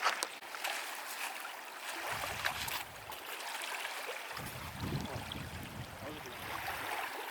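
Small waves lapping and trickling at a lake shore, with gusts of wind rumbling on the microphone about two seconds in and again from just past four seconds.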